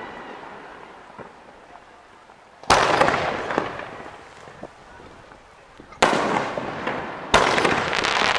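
Aerial fireworks shells bursting: three sharp bangs, one about a third of the way in and two close together near the end, each trailing off in a fading rumble.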